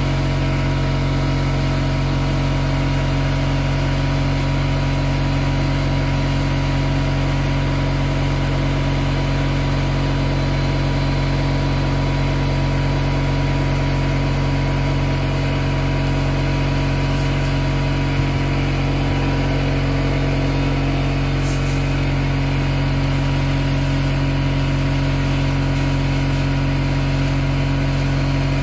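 Airbrush air compressor running steadily, a loud even motor hum with hiss over it, supplying air while the airbrush sprays.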